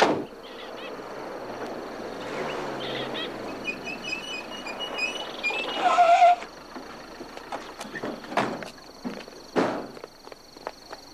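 Outdoor ambience: a steady high insect drone with a few bird chirps. A sharp knock opens it, and a louder noisy stretch underneath stops about six seconds in.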